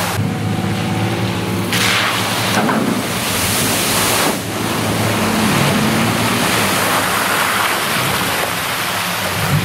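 Nissan Frontier PRO-4X pickup's V6 engine running under throttle as it drives through a muddy water crossing, with water and mud splashing from the tyres. The splashing surges about two seconds in and again around three to four seconds in.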